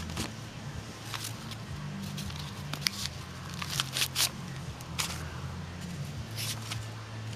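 Paper-wrapped packets of 5.45x39 cartridges being handled and pulled out of an opened steel spam can: scattered clicks and paper crackle over a low steady hum.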